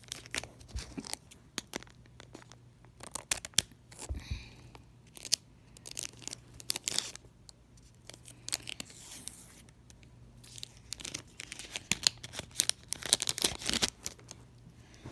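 Foil wrapper of a Pokémon booster pack crinkling as it is cut and torn open, an irregular run of sharp crackles and snips.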